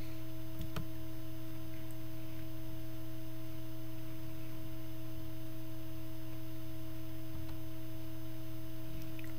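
Steady electrical mains hum picked up by the recording microphone, holding several unchanging tones, with a few faint clicks.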